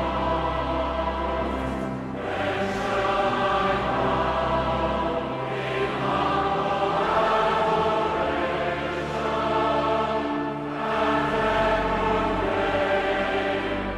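Choir or congregation singing a hymn in held phrases, with sustained low accompanying notes; the phrases break off briefly about every three to five seconds.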